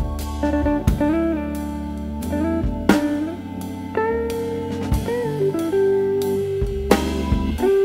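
Instrumental background music: guitar with notes sliding between pitches over a steady drum beat.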